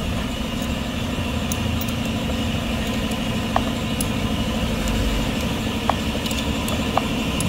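Shop air compressor running steadily as it builds up pressure for an injector leak test. Three short clicks stand out over it.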